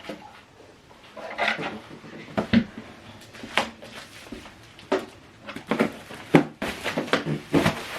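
Handling noise from unboxing: a string of light knocks, taps and rustles as packaging and boxed parts are moved about and set down on a surface.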